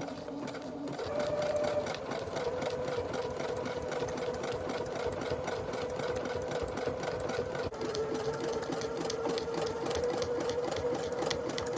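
Electric sewing machine running steadily, its motor humming under a fast, even rattle of needle strokes as it stitches a patch onto a thick foam-padded backpack strap. The motor pitch shifts about a second in and again a little later.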